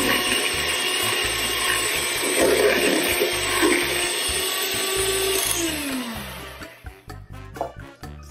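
Electric hand mixer running steadily, its beaters churning buttercream frosting in a stainless steel bowl. About five and a half seconds in it is switched off, and its pitch falls as the motor winds down.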